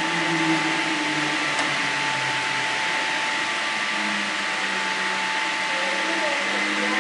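Steady running noise of a train: an even rumble and hiss with constant high whining tones, and faint voices underneath.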